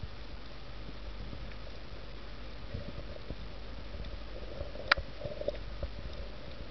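Muffled underwater sound picked up through a camera's waterproof housing: a steady low rumble with scattered faint clicks and one sharp click about five seconds in.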